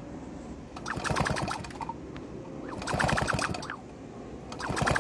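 Motorized bicycle's small two-stroke engine turned over by spinning the wheel, in three bursts of rapid clicking about a second long each, during a spark check with the plug out and grounded to the cylinder head.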